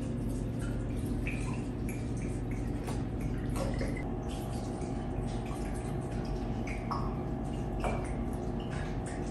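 Water poured from a bottle into houseplant pots, trickling and dripping in short drops now and then over a steady low room hum.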